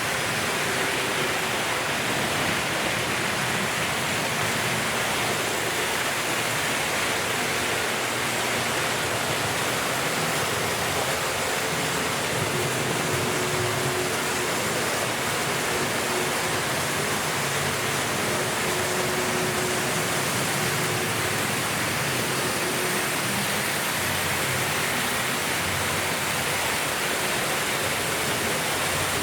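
Several Märklin H0 model trains running at once, mostly hauled by 1960s and 1970s Märklin locomotives: a steady rushing rumble of metal wheels on metal track and small electric motors. A faint thin motor whine comes and goes in the middle.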